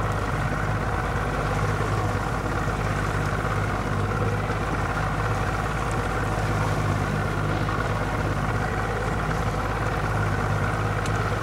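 A boat engine running steadily at an unchanging low pitch, with a hiss of wind and water over it.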